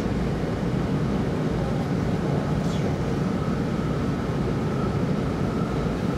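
Running noise of an E2 series 0 Shinkansen heard from inside the passenger car: a steady low rumble from wheels and track with a hiss above it. A faint steady whine comes in about halfway through.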